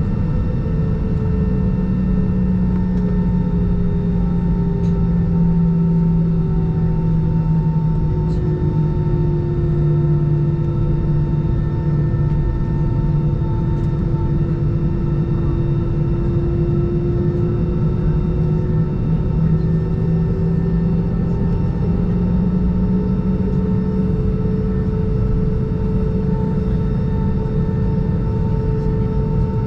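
Airbus A320 cabin noise during taxi, heard from a seat over the wing: the jet engines at low thrust give a steady rumble and hum. One of the engine tones sinks slowly in pitch toward the middle and rises back again near the end.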